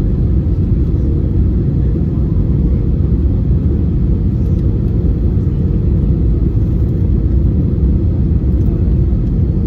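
Cabin noise inside an Airbus A320 on final approach: a steady low rumble of airflow and engines, with a faint steady hum above it.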